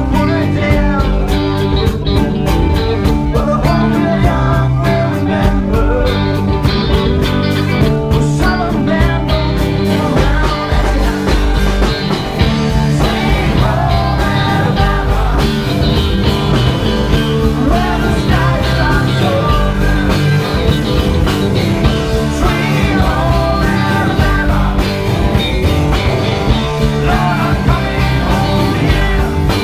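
Rock cover band playing live and loud, with electric guitars and bass over a steady beat, heard from within the audience.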